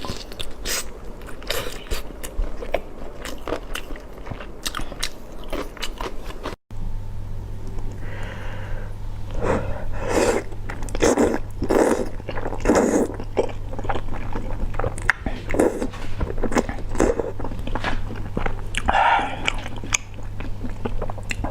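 Close-miked eating: a person biting, chewing and crunching food in quick, irregular mouthfuls. The sound drops out for an instant about a third of the way in, then the chewing goes on over a steady low hum.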